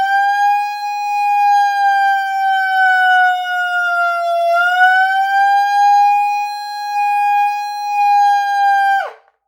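Faraday 141 24-volt DC electronic horn sounding its factory-default siren tone, crazy loud: one high, steady tone that sags slightly in pitch midway and climbs back, then cuts off with a quick drop in pitch about nine seconds in.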